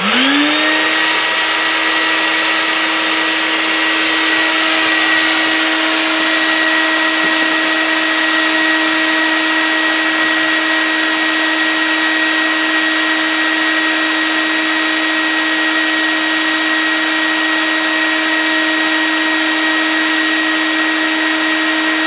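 Homemade bee vacuum's motor running, pulling bees off the comb through a smooth hose. It winds up to speed and settles within the first second into one steady whine over a steady rush of suction air.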